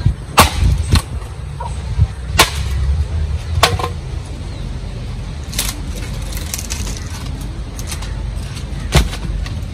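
Sharp knocks at irregular intervals, about half a dozen, over a steady low rumble.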